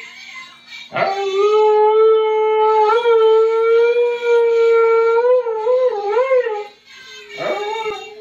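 Siberian husky howling: a long howl starting about a second in, held at a steady pitch and then wavering up and down before it stops, followed by a second, shorter howl near the end.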